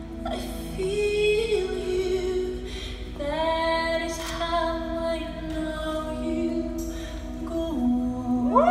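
Song playing with a woman singing long held notes over a soft accompaniment.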